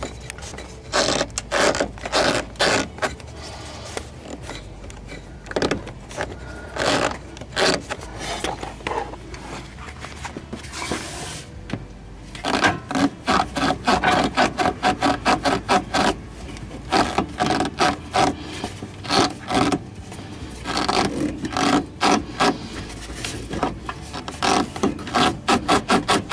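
Rubber radiator hose being twisted and worked off its outlet by hand, with repeated short scraping and rubbing strokes that come in quick runs.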